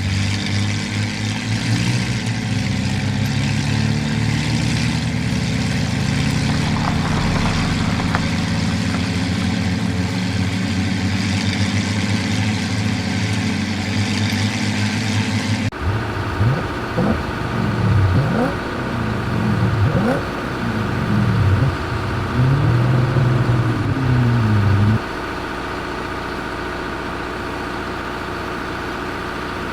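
Vehicle engine running steadily. About halfway through the sound cuts abruptly to a string of revs rising and falling, one every second or so, which then gives way to a steady, quieter hum.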